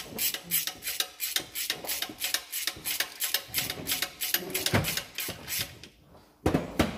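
A quick run of light metallic clicks and scrapes, several a second, with a couple of heavier clunks near the end, from hands working at the join between the diesel engine and the gearbox bell housing.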